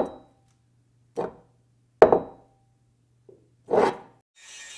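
A run of about five sharp knocks, roughly a second apart and each dying away quickly, over a faint low hum. A steady hiss comes in near the end.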